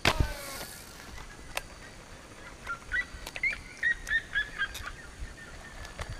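A slingshot firing a fishing arrow: a sharp snap of the bands right at the start, then a brief falling whir as the line runs off the spincast reel. About three seconds in comes a run of short, high chirps, several a second, for about two seconds.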